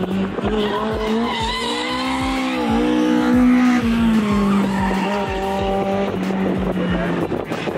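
Four-cylinder Toyota Corolla drift car held at high revs while its tyres squeal through a slide. The engine pitch dips briefly and climbs back about three seconds in.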